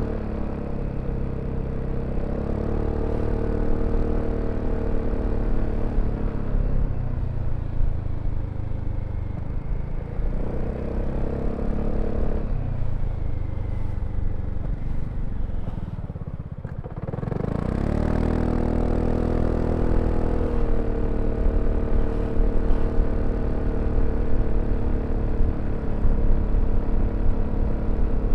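BMW C400X scooter's single-cylinder engine running under way, its note rising and falling with the throttle. About sixteen seconds in it drops nearly to idle, then climbs quickly as the scooter pulls away again and settles into a steady cruise, with low wind and road rumble underneath.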